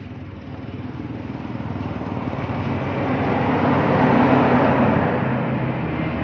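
A motor vehicle engine running, growing steadily louder to a peak about four seconds in and then easing off slightly.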